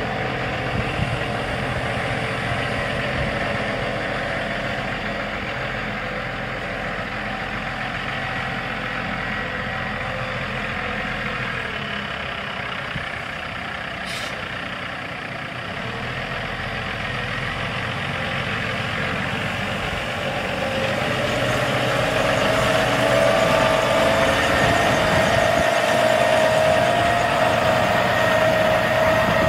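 Cummins ISX 14.9-litre inline-six turbo diesel in a semi truck, idling steadily; it grows louder about two-thirds of the way through.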